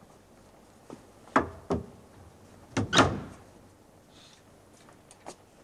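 Wooden doors being shut: two sharp knocks about a second and a half in, then a louder double thud a second later.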